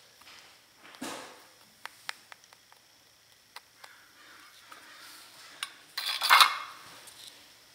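Light metallic clicks and taps of a soldering iron being worked at a small DC motor's terminals, then a louder metal clatter about six seconds in as the iron is set down.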